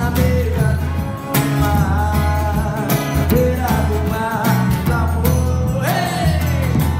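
Live forró band playing: a male voice singing over strummed acoustic guitar, a zabumba bass drum beating a steady low pattern, and bright metallic percussion strikes from a triangle.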